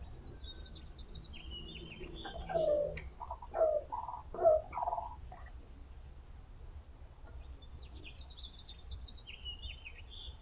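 A rooster calls in a run of loud, short notes with bending pitch, starting about two and a half seconds in and lasting about two and a half seconds. High, quick chirps of small wild birds sound near the start and again near the end.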